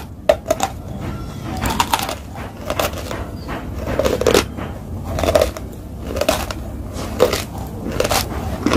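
Ice cubes being crunched and chewed between the teeth. The crunches come as a series of sharp, crackly bites, about one burst every second.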